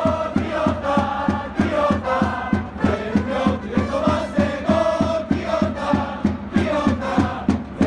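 Chiba Lotte Marines supporters' section singing a player's cheer song in unison as a loud massed chant, over a steady drumbeat of about four beats a second.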